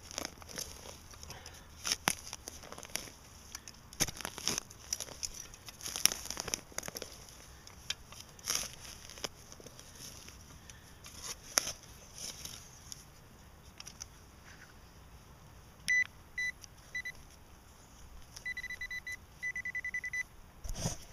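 Digging in forest soil and leaf litter: a run of scraping, crunching strokes. About three-quarters of the way in, a Garrett pinpointer starts beeping at one steady pitch as it locates the buried metal target. It gives three short beeps, then two longer steady tones.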